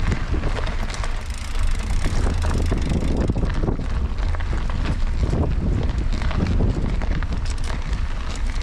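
Wind buffeting the microphone: a loud, rough, continuous low rumble with frequent small clicks and rattles mixed in.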